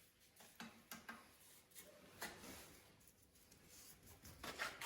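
Near silence with a few faint clicks and light knocks, with a slightly busier patch near the end, as ceramic tile pieces of a fireplace are eased into place by hand.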